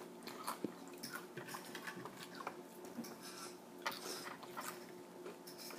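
Faint, scattered clicks and taps as a toy train locomotive is handled and moved on a wooden tabletop, over a faint steady hum.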